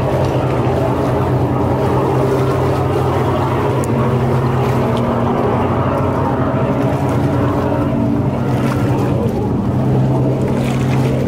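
A boat engine running steadily with a low, even hum, its tone shifting slightly about four seconds in and again near the end.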